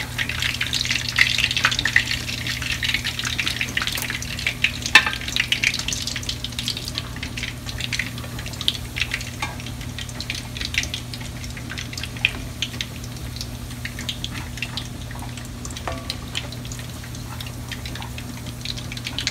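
Fish cakes shallow-frying in about half an inch of hot oil in a skillet: a dense sizzle and crackle, busiest in the first few seconds and thinning after. A few sharp clicks come as a slotted spatula and spoon work in the pan to lift the cakes out.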